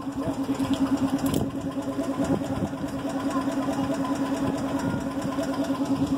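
Engine of a C.P. Huntington miniature train locomotive idling at a standstill, a steady pulsing hum.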